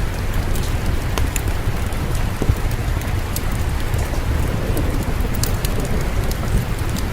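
Steady rain with a low rumble beneath it, and scattered sharp crackles and pops from a wood fire in a fireplace.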